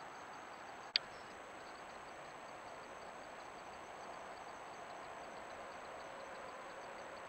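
Faint, steady chorus of night insects, with one sharp click about a second in where two trail-camera clips are spliced together.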